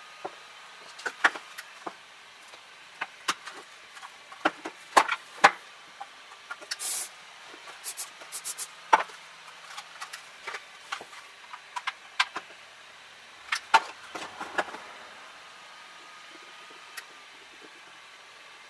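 Hard 3D-printed plastic parts being handled, clicking and knocking against each other and the tabletop in irregular taps, with one short hiss about seven seconds in. The handling noises stop about three-quarters of the way through.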